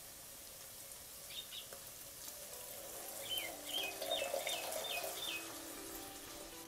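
Water poured from a small mug into a steel karahi of frying shrimp masala, with a faint sizzle that swells midway. A quick run of faint, high, falling chirps sounds in the middle.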